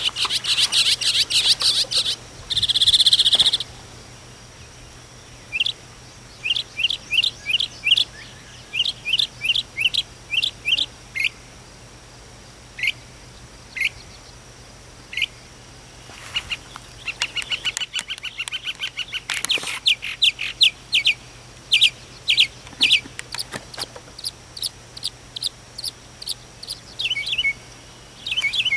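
Northern mockingbird singing: strings of quick, sharp, high repeated notes in phrases, broken by pauses of a few seconds.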